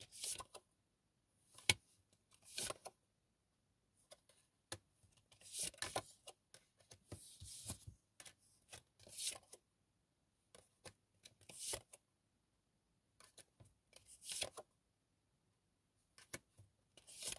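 Tarot cards being shuffled and handled: short swishes and clicks a second or two apart, with quiet gaps between them.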